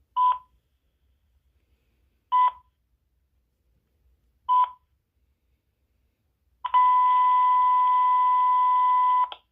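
Uniden DCT648-3 cordless phone sounding three short beeps about two seconds apart, then one long steady beep of about two and a half seconds.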